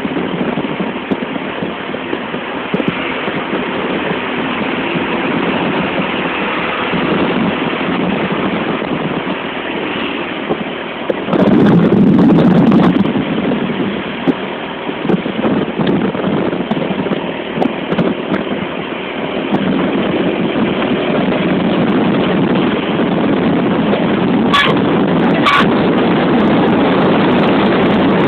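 Road traffic noise with wind buffeting the microphone. A louder low rumble swells for about two seconds near the middle, and two sharp clicks come near the end.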